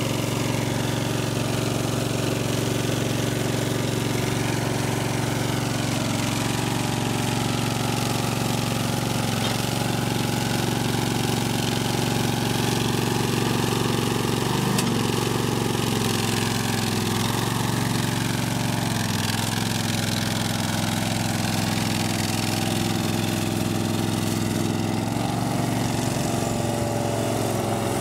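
Toro Greensmaster 3100 riding greens mower's engine running steadily as the machine drives across the grass, its pitch shifting slightly a few times.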